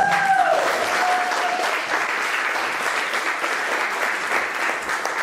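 Audience clapping, a dense steady applause. A single voice holds a high note over the first second and a half or so, at the close of the song.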